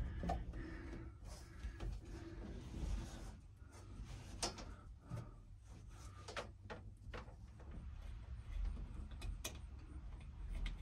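Hands fitting a window screen into a truck canopy's window frame: rubbing and handling noises, with scattered light clicks and taps in the middle and again near the end.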